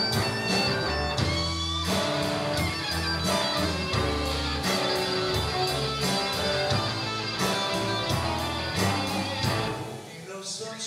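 A live rock band playing an instrumental passage: two electric guitars, electric bass and a drum kit. The band drops down quieter near the end.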